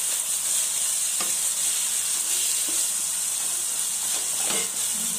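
Masala-coated chicken pieces frying and sizzling in a nonstick kadai while a wooden spatula stirs them, with a couple of short scrapes of the spatula against the pan, about a second in and near the end.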